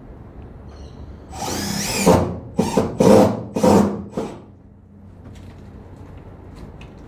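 Power drill run in short bursts: one longer run of about a second, then three or four quick squeezes of the trigger, each starting and stopping sharply.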